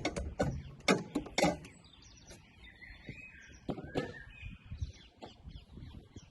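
Several sharp clicks and knocks of hand tools working the strut brace's mounting nuts during the first second and a half, then a few faint bird chirps.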